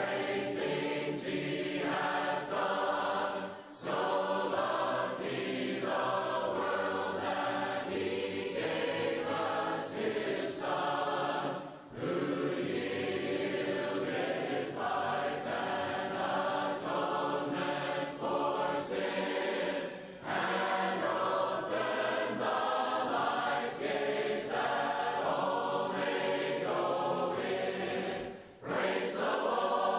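A choir of mixed voices singing a hymn a cappella, in long sung lines with a brief break about every eight seconds.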